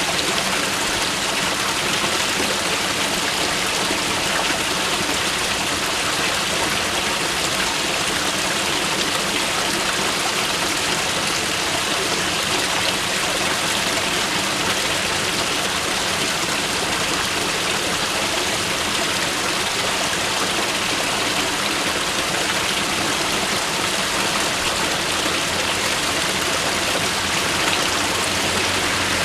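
Mountain river rushing steadily over rocks, a continuous even wash of running water.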